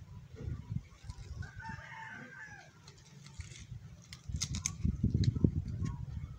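A rooster crows about a second and a half in. From about four seconds in, a louder close rumbling and clicking takes over as hands grip and rustle the stalks of a bok choy plant.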